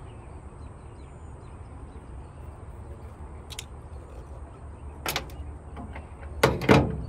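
Handling noise from unhooking a catfish with pliers over a wooden truck tailgate: a few sharp knocks and thumps, the loudest about six and a half seconds in, over a steady low rumble.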